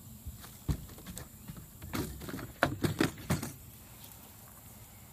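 A striped bass flopping on the floor of a boat: a series of irregular thumps and slaps, the loudest bunched together a little past the middle.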